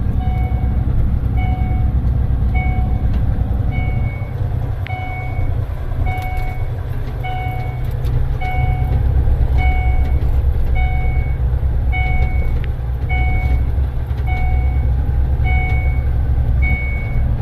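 Diesel engine of a heavy dump truck running with a steady low rumble, while a backup alarm beeps at an even pace, each beep a short middle and high tone sounding together.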